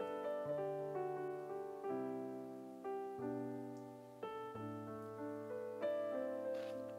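Background piano music: a slow melody of struck notes, each starting sharply and fading before the next.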